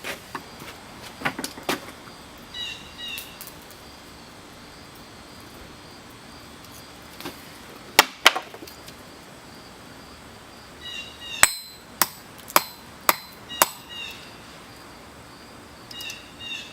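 Blacksmith's hammer striking on the anvil in scattered blows: a couple near the start, two sharp ones about halfway, then a quick run of five about half a second apart. Short high chirps sound between the blows.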